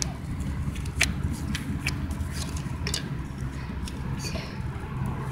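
Slime being poked with fingers, giving scattered short clicks and pops, over a steady low hum.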